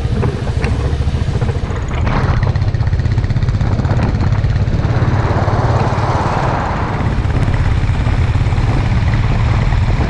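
Single-cylinder Royal Enfield motorcycle engine running steadily on the move, with a swell of wind rush from about five to seven seconds in.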